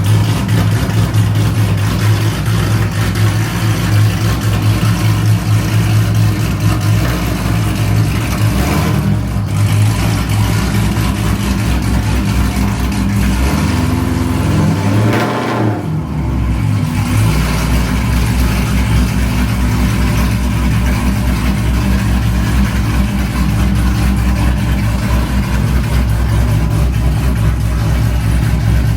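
Car engine idling steadily close by, its note dipping and recovering briefly about halfway through.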